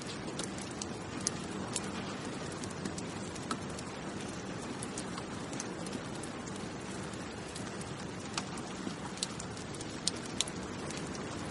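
Steady city rain: an even wash of rainfall, with sharp drips striking hard surfaces at irregular moments.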